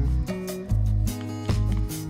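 Background music: a melody with sustained bass notes and a steady beat.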